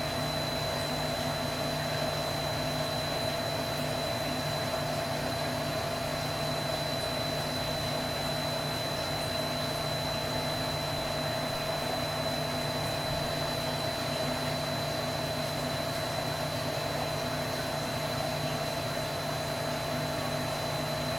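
Steady machine hum from a running motor or fan, with a thin high whine held over it, unchanging throughout.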